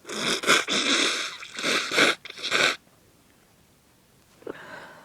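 A person with a heavy head cold blowing a congested, running nose hard: several forceful blows in quick succession over about three seconds, then a fainter short noise near the end.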